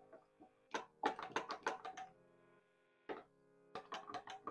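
A metal spoon clinking against a glass measuring jug while stirring chia seeds into milk: quick runs of light clinks, stopping briefly about halfway and starting again.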